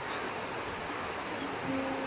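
Steady rush of wind, the breeze through a neem tree's leaves, with a faint low steady hum coming in about halfway through and a brief faint high chirp near the end.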